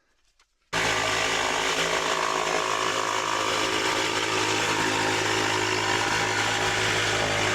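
Electric power saw running steadily under load as it cuts through the cabin wall for the gable window opening. The sound starts abruptly under a second in.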